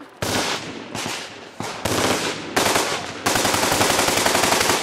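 Fully automatic gunfire: several short bursts of machine-gun fire, then one long unbroken burst over the last second and a half that stops abruptly.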